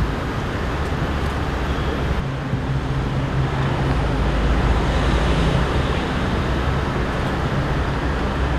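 Steady low rumble of motor-vehicle and traffic noise, with a faint low engine hum joining about two seconds in.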